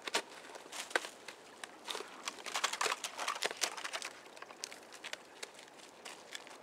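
Thin creek ice and crusted snow crunching and cracking underfoot: irregular sharp cracks and crackles, thickest around the middle.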